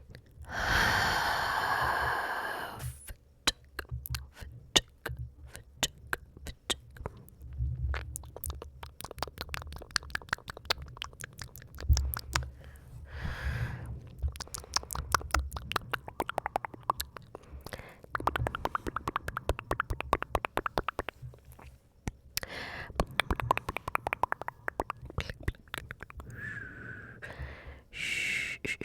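Mouth sounds: a breathy hiss lasting about two seconds near the start, then long runs of rapid tongue and lip clicks and smacks.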